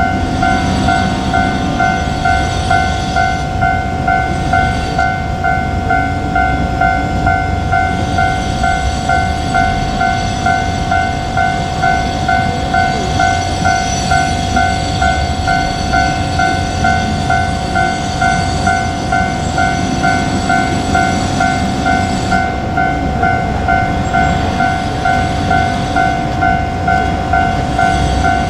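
Japanese railway level crossing warning bell ringing a steady, rapid repeating ding, over the rumble of a diesel train running past the crossing.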